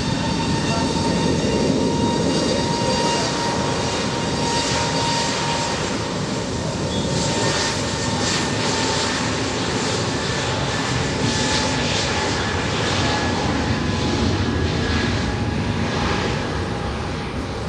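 Aircraft engines running steadily, a broad rushing noise with a high, held whine of several tones over it.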